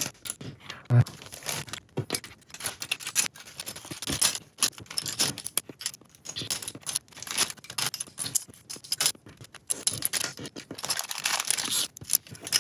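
Small plastic building-block pieces clicking and rattling against one another in irregular bursts, with plastic bags crinkling, as the pieces are handled and counted.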